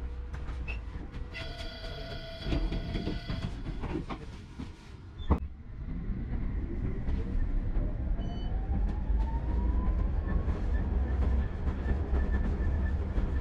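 Tram running on rails with a low steady rumble. Early on a multi-tone chime signal sounds for about two seconds. About five seconds in there is one sharp knock, and then the electric traction motors give a smoothly rising whine as the tram accelerates.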